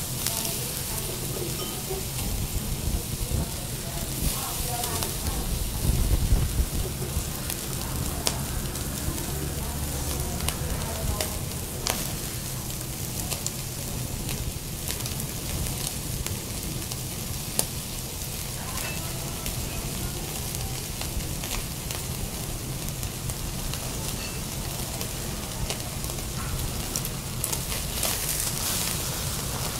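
Thick Matsusaka wagyu steak sizzling on a wire grill over charcoal, a steady hiss with scattered crackles and pops. There is a brief low thud about six seconds in.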